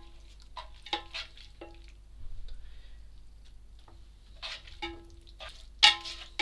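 Plastic slotted turner scraping and knocking against a nonstick pan while lifting out fried bacon: a dozen or so short knocks, each with a brief ringing tone, the loudest near the end. Faint sizzling of the hot fat underneath.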